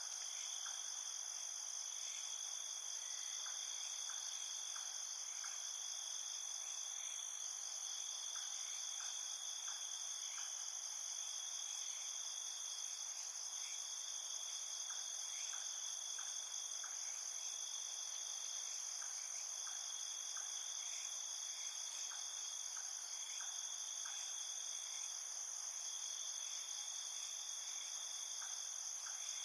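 Night chorus of insects trilling steadily at two high pitches, with short faint clicks in clusters of three or four every few seconds.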